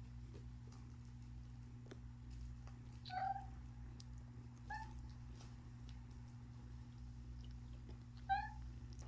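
Kitten mewing: three short, high mews spaced a few seconds apart, the last the loudest, over a steady low hum.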